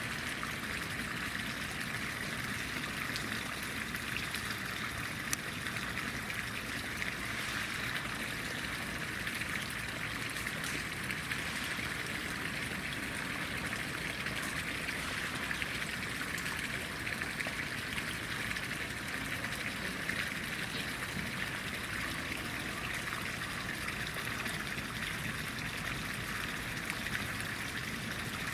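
Steady running water with a constant rushing hiss that does not change.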